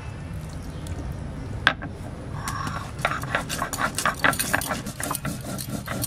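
Stone muller (nora) worked over a flat stone grinding slab (shil), crushing cumin and coriander seeds with a little water. A sharp knock comes a little under two seconds in, then a run of gritty scrapes and clicks several times a second as the stone is rocked back and forth.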